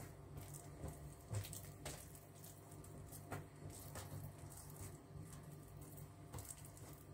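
Faint wet squishing of a strip of oily, poppy-seed-paste dough being rolled and twisted by hand against the work surface, with a few light clicks and a steady low hum underneath.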